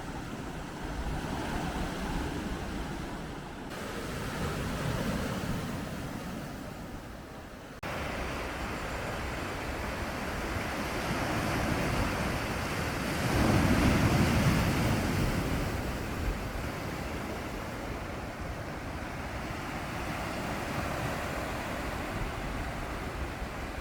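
Steady rushing water noise, in a few clips joined by sudden cuts, swelling loudest about halfway through.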